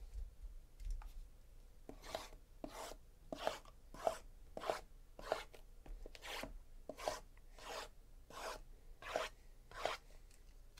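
Sealed cardboard baseball-card hobby boxes being slid and shuffled against each other by hand: a dozen or so short scraping rubs, about one and a half a second, starting about two seconds in.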